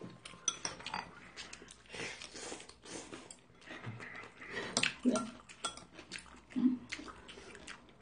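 Close-up eating sounds: mouth noises of chewing from a bowl, with scattered light clicks and clinks of dishes and cutlery.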